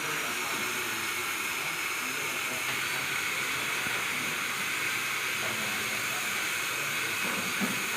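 Steady hiss-like noise with faint voices murmuring now and then underneath.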